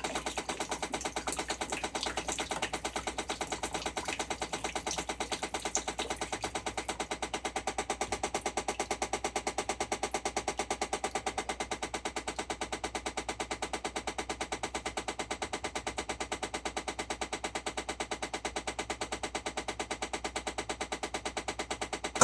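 Maytag Centennial Commercial Technology top-load washer making a fast, even clicking, several clicks a second, while running its automatic diagnostic test; the clicking is the fault being checked. It cuts off with a louder knock at the very end.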